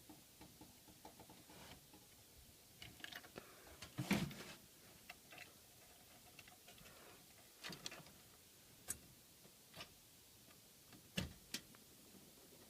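Scattered light clicks and knocks of computer parts being handled and fitted by hand, with a louder knock about four seconds in and another sharp click near the end, as a part snaps into place.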